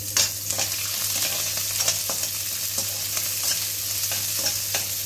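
Chopped onion sizzling in hot oil in a stainless steel kadai, with a steel spatula scraping and clinking irregularly against the pan as it is stirred.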